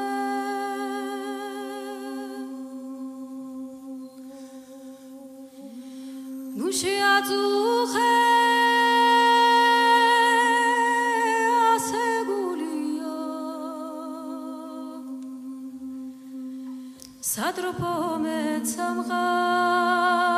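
Background music of a cappella voices humming and singing long held notes with vibrato over a steady low drone. The voices swell louder about six seconds in and again near the end.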